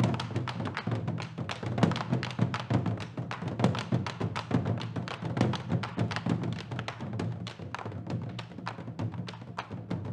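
Live percussion music: fast, dense drum strokes, about five or six a second, over a steady low ringing tone.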